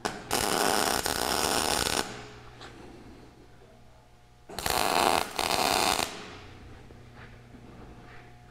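MIG welder laying two short welds on a steel cage joint. Each weld is a steady crackling buzz: the first lasts nearly two seconds, the second starts about four and a half seconds in and lasts about a second and a half, with a brief break partway through.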